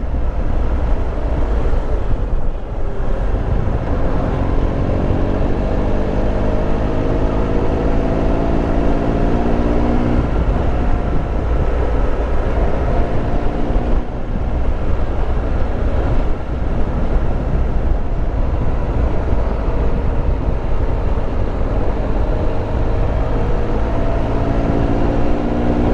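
Triumph Tiger Explorer 1200's three-cylinder engine pulling on the road, its note climbing in pitch under acceleration several times and dropping back between, over a heavy low rush of wind and road noise.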